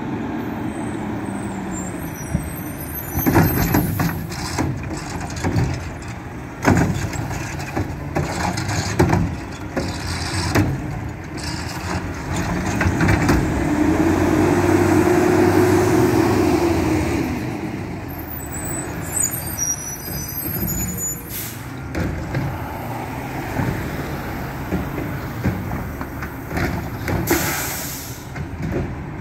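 Mack LEU garbage truck with a Heil front loader and Curotto Can arm stopping at a trash cart and emptying it: diesel engine running, revving for several seconds midway to drive the hydraulics, with metallic clanks and knocks from the arm and cart and air brakes hissing.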